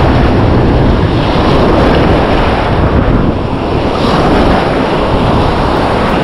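Surf washing and churning over rocks close by, with wind buffeting the microphone.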